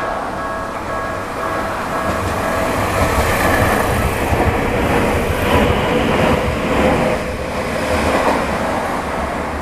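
A Tokyu Ikegami Line electric train passes over a level crossing, its wheels clattering over the rails; the noise builds about two seconds in and eases near the end. The crossing's repeating electronic warning bell rings at the start and is then drowned out by the passing train.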